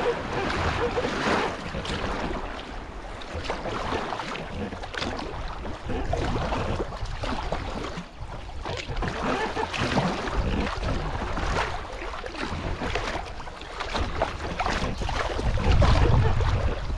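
Kayak paddle strokes splashing and dripping in river water, with wind buffeting the microphone, strongest near the end.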